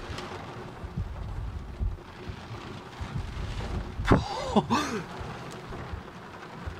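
Heavy rain drumming on a car's roof and windscreen, heard from inside the car as a steady hiss with many small low thuds. A brief voice-like exclamation about four seconds in.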